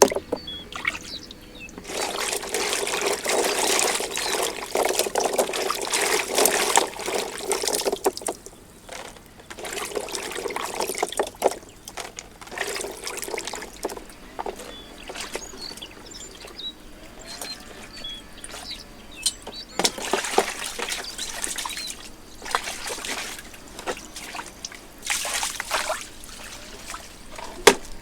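Water pouring and trickling in spells: one long spell, a shorter one soon after, then three brief ones, with quiet gaps between.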